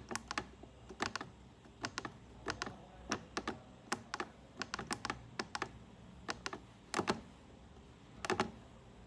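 Buttons on a VEIKONG VFD500 inverter's LCD keypad being pressed to step through menus: a series of sharp clicks at irregular intervals, about one or two a second, some in quick pairs.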